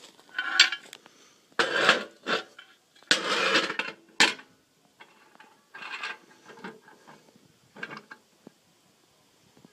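Cast iron wood stove parts being handled: a metal door panel scraping and clanking against the stove body in several short bursts, with one sharp clank about four seconds in.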